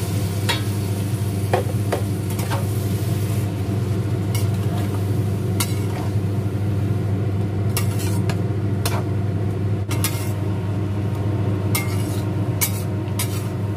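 Spatula stirring and tossing chopped chayote, long beans and krecek in a stainless steel wok, with scrapes and knocks against the pan at irregular moments. A steady low hum runs underneath throughout.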